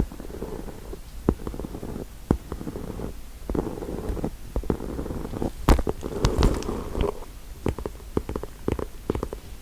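ASMR tapping and scratching on objects close to the microphone: irregular sharp taps mixed with patches of low scratching noise. The loudest tap comes a little past halfway.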